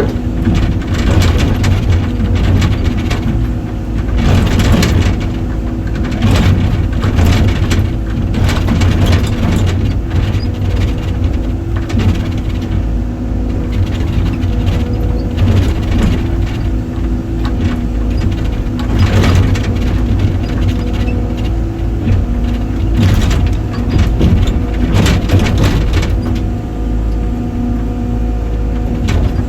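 Excavator's diesel engine running steadily, with repeated sharp cracks and crunches as tree roots are torn and broken.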